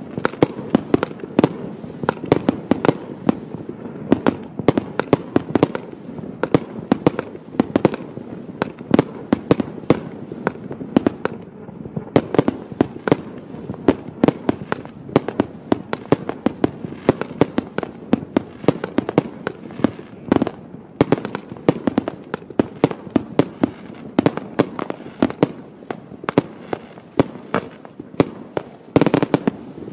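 Celtic Fireworks 'Spiders Web' 25 mm firework cake firing: a dense, continuous run of sharp cracks and pops, several a second, as its shells burst overhead. A louder burst comes near the end.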